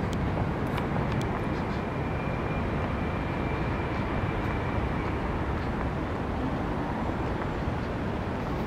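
Steady outdoor rumble, heavy in the low end, from wind on the microphone and distant city traffic, with a few light clicks near the start and a faint thin high tone for a few seconds.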